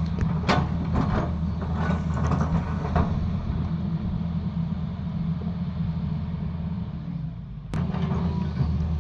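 Diesel engine of a Tata Hitachi excavator running steadily, with several sharp knocks and clanks in the first three seconds. Near the end the engine drops off briefly, then picks up again after a click.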